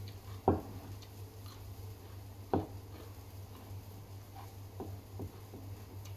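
Gloved fingers picking food out of a wooden bowl: two sharp knocks about two seconds apart, then a few lighter ticks, over a steady low hum.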